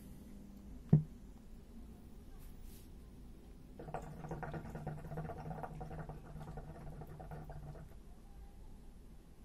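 A sharp click about a second in, then a hookah's water base bubbling for about four seconds as a puff is drawn through the hose.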